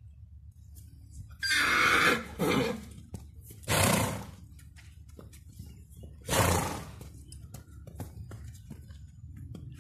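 Horse neighing: a long loud call about one and a half seconds in, then three shorter loud calls at about two and a half, four and six and a half seconds.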